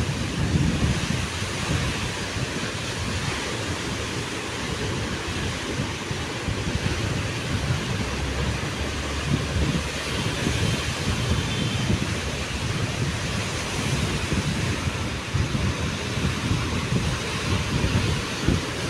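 Rough sea surf breaking against a rock seawall, with wind buffeting the microphone in irregular low rumbles.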